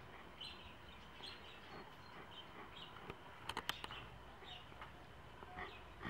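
Faint birds chirping: scattered short, high calls, with a few sharp clicks about three and a half seconds in.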